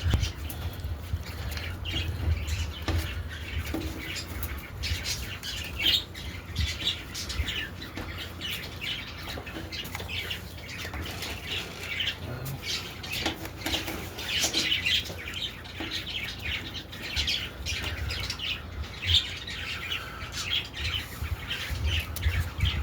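Birds calling, many short high calls following close on one another, over a low steady rumble.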